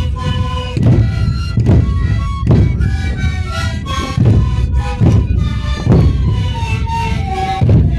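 Sikuri troupe playing: many siku panpipes blown together in a breathy melody over deep bass drums beating a steady pulse a little faster than once a second.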